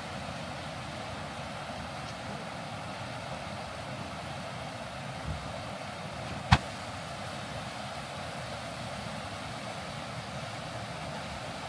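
Steady, even rushing of a river flowing below. About halfway through there is one sharp click.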